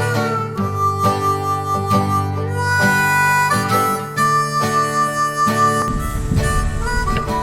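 Background music: a harmonica melody with held, bending notes over a plucked acoustic guitar. A low rumble joins about six seconds in.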